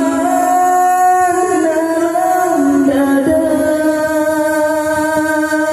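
A man singing an Acehnese qasidah in an Indian-style melody into a microphone, amplified, holding long drawn-out notes that step to a new pitch a few times.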